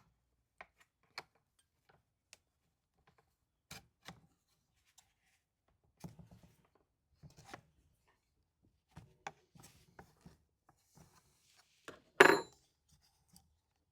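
Scattered light clicks and knocks of Stihl MS180 chainsaw parts being handled as an assembly is taken off the saw, with one louder knock about twelve seconds in.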